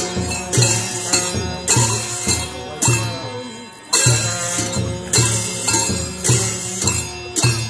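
Traditional Newar dance music: cymbals and a drum struck together on a steady beat, about one ringing crash with a deep thump every half-second or so, with a brief break a little past the middle.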